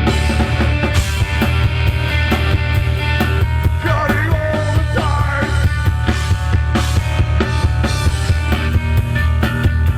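Rock band playing live and loud: distorted guitars, bass and a drum kit with a steady beat.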